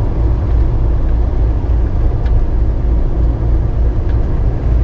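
Steady road and engine noise of a car driving at freeway speed, heard from inside the cabin as a low, even rumble.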